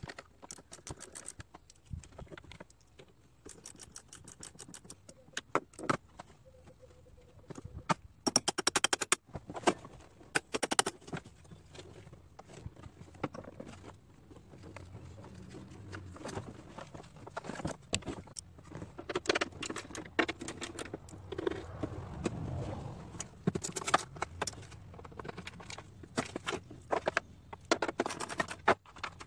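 A hand ratchet wrench clicking in short runs of rapid ticks while the car battery's terminal clamps and hold-down are loosened, with scattered metal clinks and scrapes between the runs.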